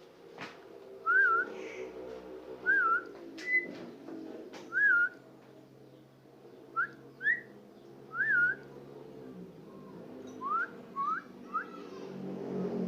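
Javan myna giving about nine short whistles. The first three are the same wavy note, evenly spaced; the rest are quick upward sweeps in twos and threes. A steady low hum runs underneath.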